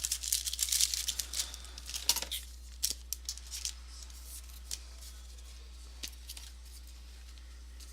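Trading-card pack wrapper crinkling and tearing as a pack is opened and cards are handled, with a few sharp clicks, busiest in the first two to three seconds and then falling faint over a steady low hum.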